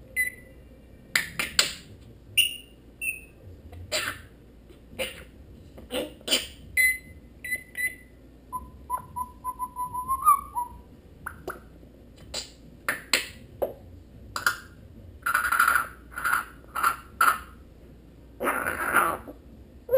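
African grey parrot calling: a string of sharp clicks and short whistled notes, with a quick run of whistled notes about halfway through and harsher, noisier calls near the end.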